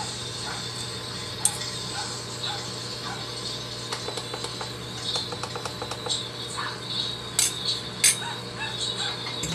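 Scattered clinks and taps of kitchen utensils against cookware over a steady low hum, with a few sharp clicks, the loudest near the end.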